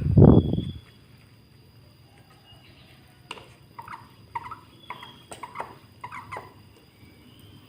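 A short, loud dull rustle or bump at the start, then a lovebird giving a quick string of short squeaky chirps, about a dozen over three seconds, with a few sharp clicks among them.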